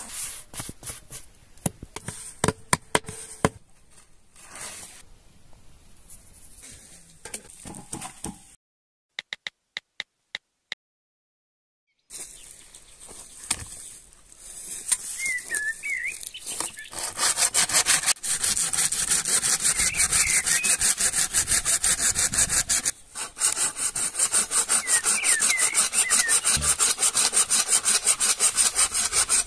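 Hand saw cutting a dry log in quick, steady back-and-forth scraping strokes, starting a little past halfway and running loud to the end. Before it come softer rubbing and slapping sounds of dough being kneaded by hand in a basin, then a short near-silent gap with a few faint ticks.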